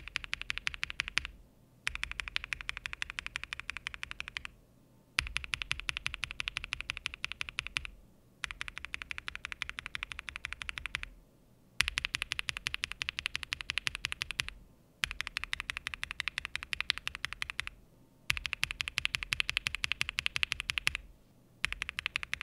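Fast typing on a mechanical keyboard with Darling frankenswitches (Gazzew Bobagum housings with Kailh Pro Burgundy stems): rapid clacking keystrokes in runs of about three seconds with short pauses between them. The last run, starting about a second before the end, is on Gateron Ink switches.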